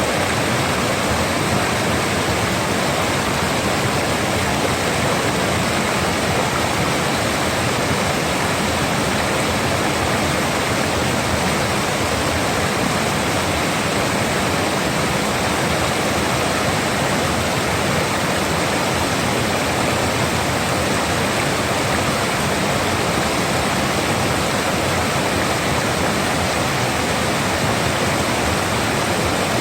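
Rough, fast-flowing water rushing steadily: a loud, even hiss and churn of water that never lets up.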